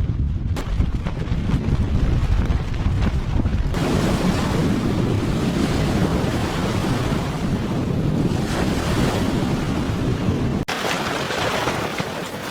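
Strong wind buffeting the microphone, a dense low rumble with gusts. Near the end it cuts off abruptly to a steadier, thinner hiss.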